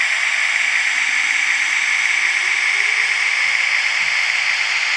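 Model Moyse shunting locomotive rolling slowly with its onboard sound running, heard mostly as a steady hiss, with a faint whine that rises in pitch around the middle.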